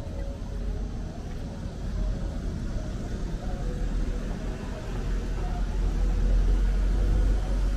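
Street traffic rumble, low and steady, swelling about six seconds in as a car drives past on the road ahead.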